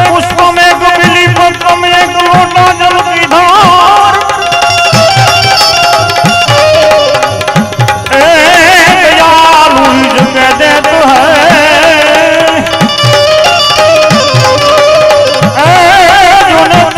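Indian devotional bhajan accompaniment: tabla keeping a steady rhythm, its bass strokes bending in pitch, under a melodic instrument line whose held notes waver.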